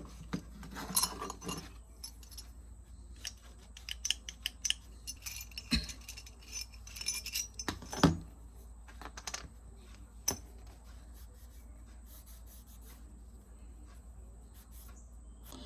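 Small metal clicks, rattles and knocks as the steel pipe wrench and an acetone container are handled on the bench while the wrench is cleaned with acetone, with the sharpest knock about eight seconds in.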